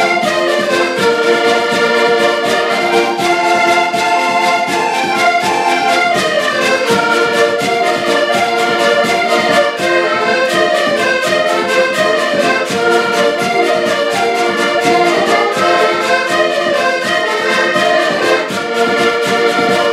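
Several diatonic button accordions playing a lively Portuguese folk tune in unison, over a steady beat from a bass drum (bombo) and a scraped wooden reco-reco.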